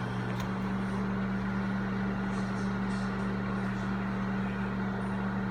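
Microwave oven running on its low power setting: a steady low electrical hum with the fan's hiss over it.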